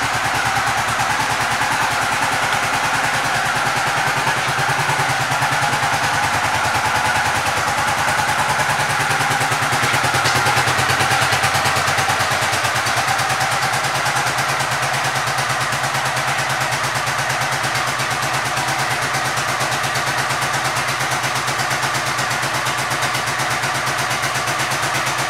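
2006 Honda Shadow Spirit 750's V-twin engine idling steadily, rising slightly for a couple of seconds about ten seconds in.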